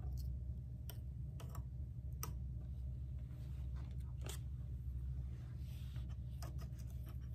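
Masking being picked and peeled off a painted wooden board: a few scattered soft clicks and scratches, with one longer scrape about four seconds in, over a steady low hum.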